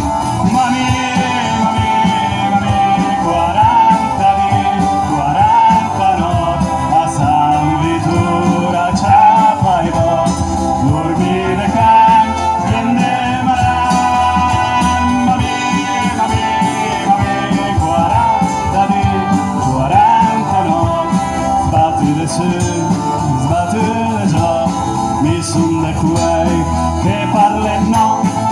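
Live band playing an instrumental passage: a trumpet carries the melody over strummed acoustic guitar, electric bass and drums.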